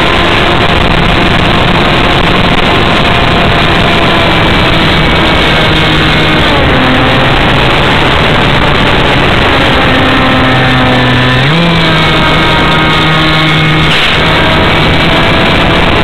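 Onboard sound of a radio-controlled model plane in flight: its motor runs steadily under heavy wind rush on the camera's microphone. The motor's pitch drops about six seconds in and jumps sharply back up a little before twelve seconds, following the throttle.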